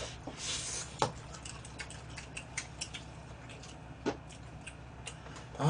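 Eating at a table: scattered small clicks and smacks of chewing and of chopsticks against plastic takeout containers, with a short hissy slurp in the first second and two sharper clicks, about one second and four seconds in.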